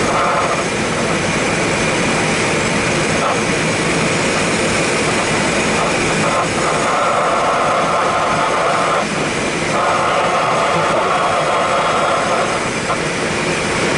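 Steady rush of air around the cockpit of an engineless Super Blanik glider in flight. A higher buzzing band comes in twice in the second half, a few seconds each time.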